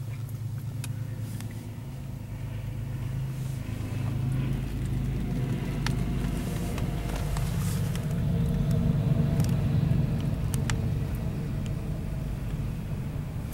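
CSX diesel locomotives at the head of a double-stack container train passing: a steady low engine drone that swells to its loudest about nine to ten seconds in, with a few sharp clicks.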